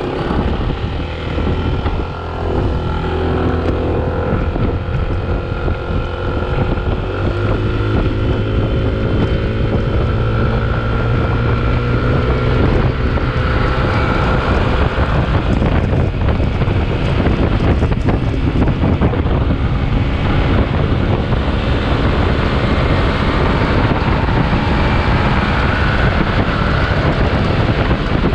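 Yamaha NMax scooter's single-cylinder engine pulling at road speed, its pitch rising gently through the first half as the scooter gains speed, under heavy wind rushing over the microphone.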